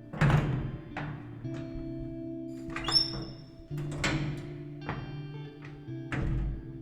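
Music with sustained low chords that change every second or two, struck through by sharp percussive knocks, each ringing out briefly, about once a second.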